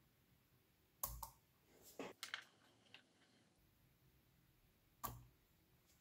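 Small magnet balls clicking against each other as a magnetic-ball leg is fitted against the body of a sculpture: a sharp click about a second in, a short run of clicks around two seconds, and another sharp click about five seconds in.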